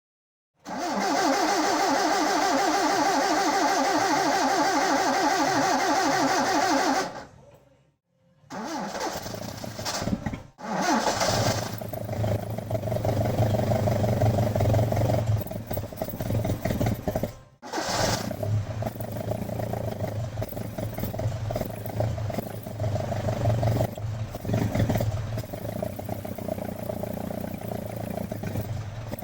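Alfa Romeo Giulia Super 1300 twin-cam four-cylinder engine turning over steadily for several seconds. After a short gap it is heard running and being revved unevenly, with two sudden breaks.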